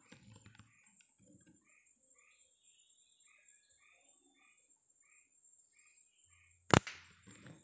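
Short chirping calls repeat about twice a second over a steady high insect hiss. Near the end comes a single sharp crack of an air-rifle shot.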